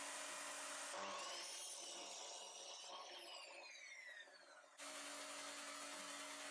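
Metabo miter saw's motor faintly whining: about a second in the whine rises, holds, then falls away as the blade winds down, cutting off sharply after about four seconds. A steady low hum runs before and after it.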